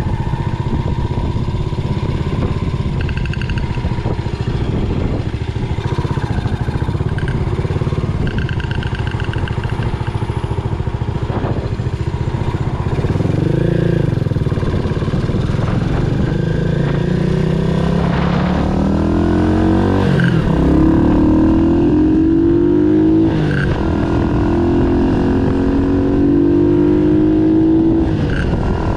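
Yamaha SR400's air-cooled single-cylinder engine running on the road. In the second half it revs up steadily through the gears, the pitch climbing and then dropping back at each shift.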